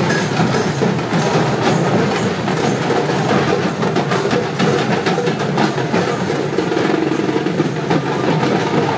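Drums of an immersion procession beaten in a rapid, dense, continuous rhythm.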